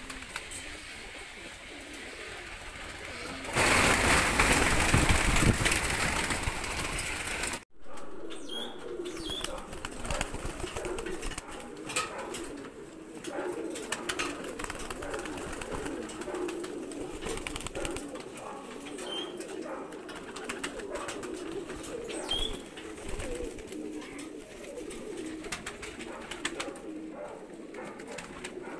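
Mookee pigeons cooing, a low rolling burble that goes on throughout. About three seconds in, a loud rushing noise covers it for about four seconds and cuts off suddenly.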